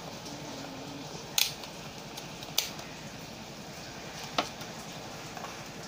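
Three sharp clicks from handling a handheld digital multimeter, its rotary selector dial being turned, over a steady low background hiss.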